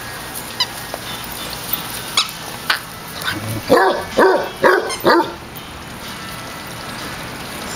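A dog barking four times in quick succession about halfway through, short play barks during rough play among dogs.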